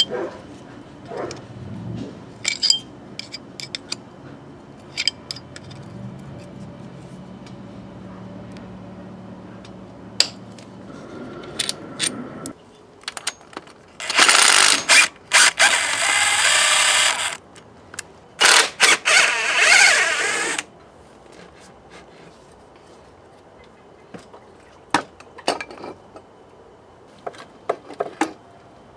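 Cordless drill-driver with a socket spinning bolts out of a motorcycle gearbox casing, in two runs of about three and two seconds a little past the middle. Around them come scattered clicks and clinks of hand tools on metal.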